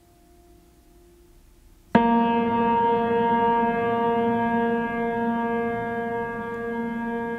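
Ambient keyboard music: a faint held tone, then about two seconds in a loud chord of many notes starts suddenly and rings on, slowly fading.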